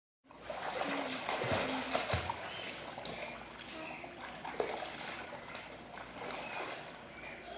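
Children splashing and moving about in a swimming pool, with a high chirp repeating evenly about three times a second, typical of a night insect.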